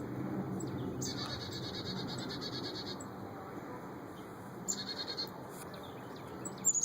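Small songbird singing rapid, high trills: one about two seconds long, a shorter one a few seconds later, and a short falling note near the end. A steady low hum sits underneath.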